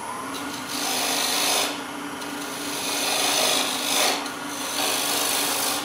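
Side-grind bowl gouge cutting into a spinning side-grain wood blank on a lathe, taking a series of bites to bring a tenon down to diameter: a hissing scrape of shavings that swells and eases several times over a steady hum.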